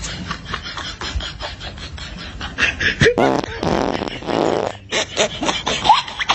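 A long, raspy fart noise about three seconds in, lasting about a second and a half and cutting off suddenly.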